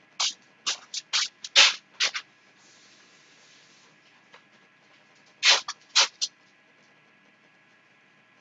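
A potato being rinsed off quickly at a sink: two clusters of short, sharp splashing and scrubbing sounds, with a faint hiss of running water between them.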